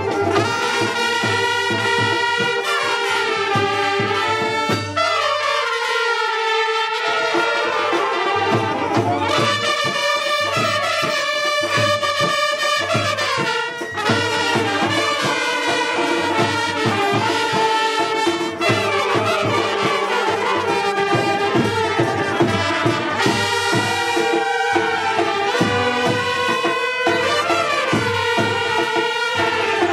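Live brass band of saxophones and trumpets playing a melody together over a steady drum beat. The low beat drops out for a couple of seconds about five seconds in, then comes back.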